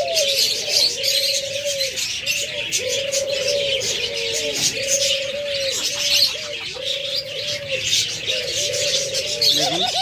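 Caged ringneck dove cooing, about five long coos roughly two seconds apart, a breeding call that the seller takes as a sign the pair will soon lay. Many small cage birds chirp steadily in the background.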